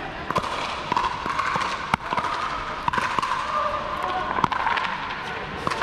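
Pickleball rally: a hard paddle striking a hollow plastic pickleball and the ball bouncing on the hard court, a series of sharp pops roughly a second apart.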